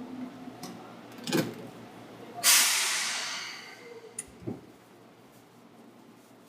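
A Seibu 2000-series electric train's compressed-air system letting out a sudden loud hiss that fades away over about a second and a half. A sharp click comes about a second before it, and two faint knocks follow.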